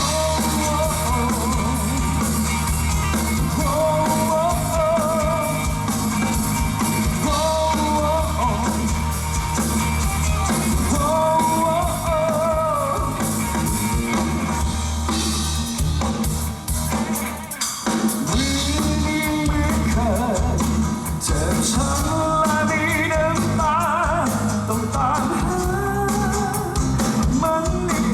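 A live rock band playing a song with drum kit, bass and guitars, a wavering melody line carried over the top. The band drops back briefly about two-thirds of the way through before picking up again.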